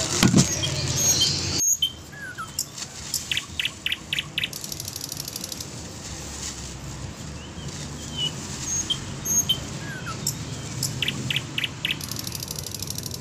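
Rustling noise for the first second and a half, cutting off abruptly. Then small birds chirping: short calls scattered through, with two quick runs of several repeated notes.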